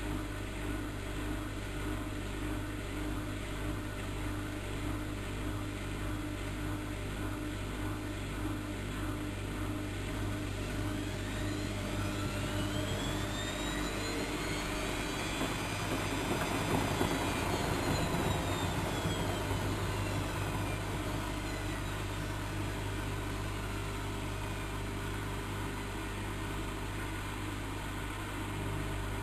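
Bauknecht WAK7760 front-loading washing machine running a 40 °C colored wash, with a steady hum and a regular pulsing tone. About ten seconds in, the drum motor's whine rises in pitch and then falls away again over about ten seconds as the drum speeds up and slows back down.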